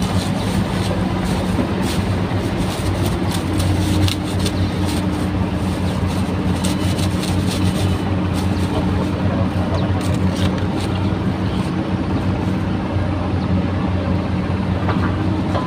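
A steady, low engine drone that holds the same pitch, with plastic crinkling and rustling in short clicks over its first two-thirds as a black plastic bag is handled.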